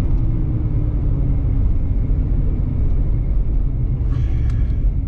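ProCharged (centrifugal-supercharged) 5.7-litre Hemi V8 running at low speed after the pass, a steady low exhaust rumble. A few faint clicks come near the end.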